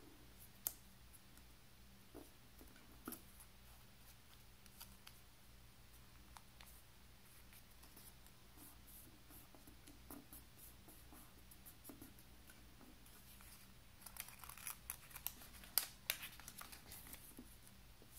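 Faint handling of paper: scattered soft clicks and rustles as small pieces of paper are folded and pressed flat by hand against a wooden tabletop, with a quicker run of crinkles and taps about three quarters of the way through.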